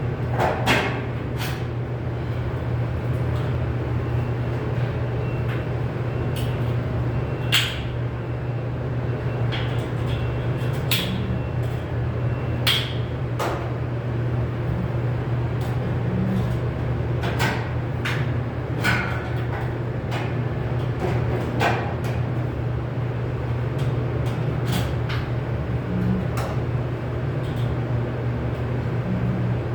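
Irregular clicks, taps and knocks of sheet metal being handled and worked, a few with a short metallic ring, over a steady low machine hum.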